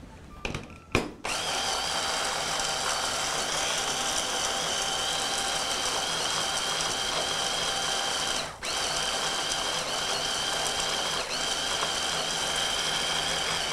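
Electric hand blender with a mini chopper bowl attachment running, grinding peanuts and sesame seeds. It makes a steady motor whine, and the goal is for the nuts to release their oil. It starts about a second in after a couple of clicks, cuts out briefly about two thirds of the way through and starts again.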